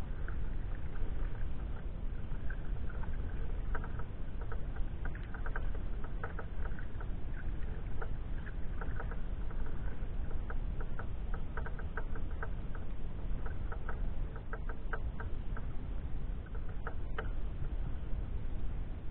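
Small water sounds on a sea kayak, irregular light patters and ticks of water lapping and dripping against the hull, over a steady low wind rumble on the microphone.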